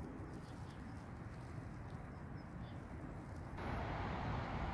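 Outdoor background noise: a low rumble of wind on the microphone under a faint steady rush, which steps up abruptly to a louder, fuller rush about three and a half seconds in.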